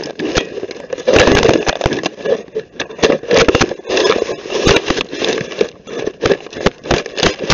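Handling noise from a camera being carried and moved about: a dense run of irregular knocks, clicks and rubbing against the microphone.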